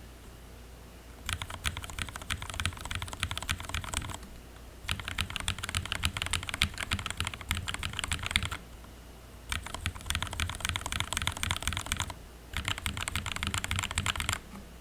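Royal Kludge G68 mechanical keyboard being typed on fast in four bursts of rapid key clacks, with short pauses between them.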